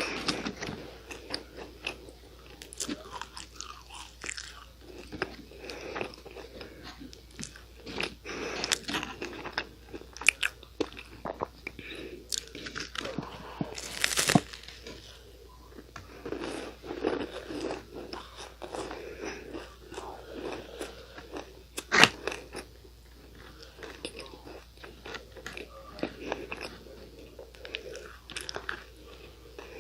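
Biting and chewing Nunettine, a flaky, sugar-glazed puff-pastry cookie: a run of crisp crunches and crackles, with a louder crunch about 14 seconds in and a sharp crack, the loudest, about 22 seconds in.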